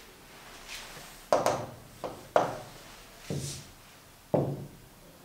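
A man's soft, short vocal sounds, about five brief muttered syllables or breaths spread over a few seconds, each starting sharply and fading.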